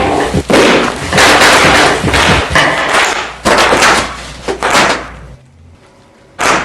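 Bubble wrap popping in dense, loud bursts of rapid crackling pops. The popping stops about five seconds in, and one last burst comes near the end.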